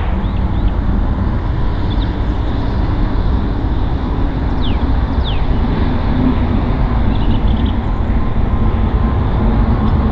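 Steady low rumble of a KLM Boeing 777-200's GE90 jet engines, with a couple of short high chirps about four and five seconds in.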